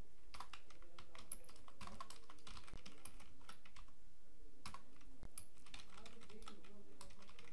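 Computer keyboard typing: irregular quick keystrokes, with a brief lull about midway.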